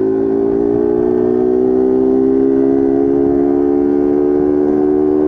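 Honda CG Start 160's single-cylinder four-stroke engine, run without its air filter, holding a steady note at cruising speed and rising slightly in pitch as it gently gains revs. The steady note breaks off abruptly near the end.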